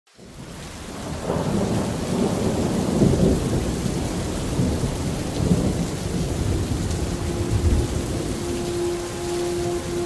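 Heavy rain with rolling thunder rumbling low underneath, fading in at the start. A few held musical notes come in about seven seconds in.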